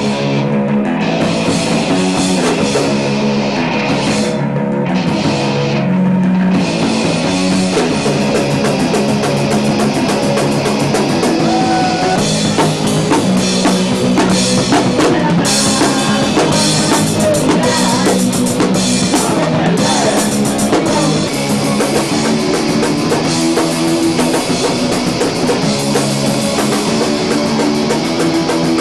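Loud rock music played on drum kit and guitars.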